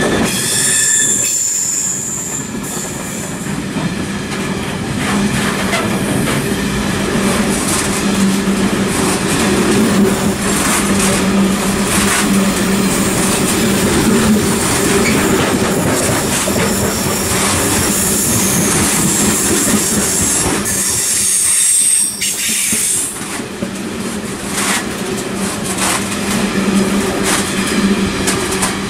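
Loaded freight spoil wagons rolling past at speed behind a Class 66 diesel: a steady rumble of steel wheels on rail, with rapid clickety-clack as the bogies cross rail joints. A high-pitched wheel squeal comes in near the start and again about two-thirds of the way through.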